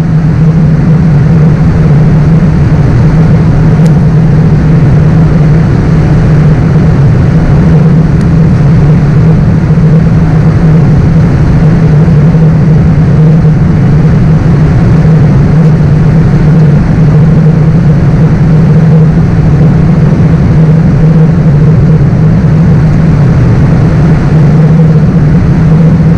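Steady, loud cabin noise on a Boeing 787-8 flight deck on final approach: engine and airflow rumble with a strong, even low hum that does not change.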